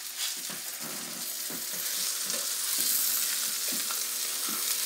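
Breaded chicken cutlets frying in butter in an electric skillet, giving a steady high sizzle. Short scraping knocks come at irregular moments as a fork moves the pieces around the pan.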